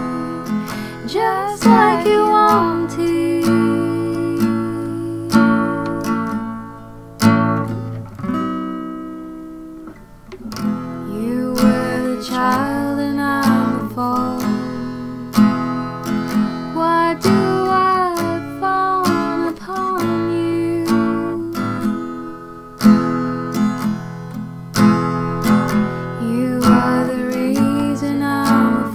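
Acoustic guitar strummed and picked in a slow song, with a singing voice over it in places. The guitar dies away about eight seconds in, then picks up again a couple of seconds later.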